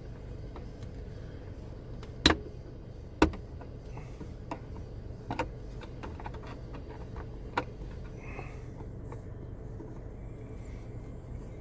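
Sharp plastic clicks and taps, the loudest two about a second apart early on, as a knife blade pries at the clips of a car's interior dome-light lens, over a steady low hum.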